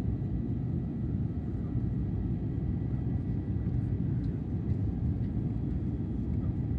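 Steady low rumble inside the cabin of an Airbus A350 in flight: the Rolls-Royce Trent XWB engines and rushing airflow heard through the fuselage.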